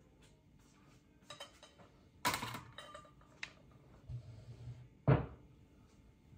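Kitchen handling sounds: scattered clinks and knocks of dishes and utensils on a counter, with louder knocks a little after two seconds in and about five seconds in.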